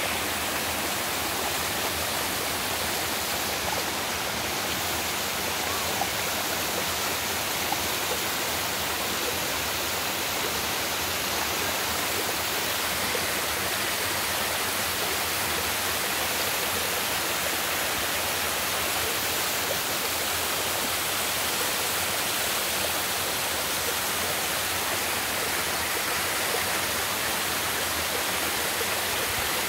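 Waterfall on a mountain stream, water pouring and rushing in a steady, unbroken roar.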